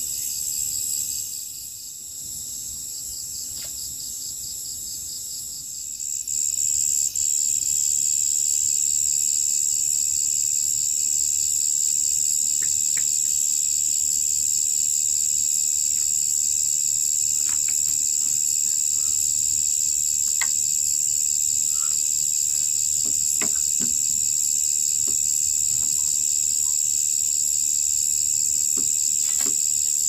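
Chorus of night insects: a steady, shrill, high-pitched drone that grows louder about six seconds in, with a few faint knocks and clicks now and then.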